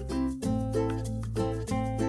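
Background music: a light plucked-string tune, ukulele-like, over a steady bass.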